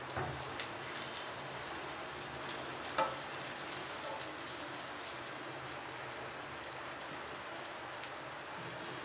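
Soufflé omelette batter frying in butter in a nonstick pan, a steady gentle sizzle. A silicone spatula knocks lightly against the pan twice, the louder knock about three seconds in.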